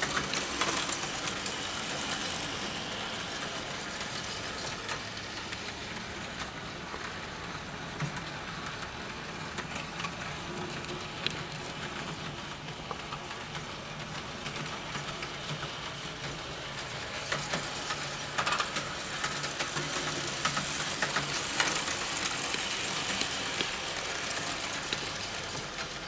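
Märklin HO model train running on the layout track: a steady motor hum with the wheels rumbling and clicking over the rails. It grows louder about seventeen seconds in, as the wagons pass close by, then fades a little near the end.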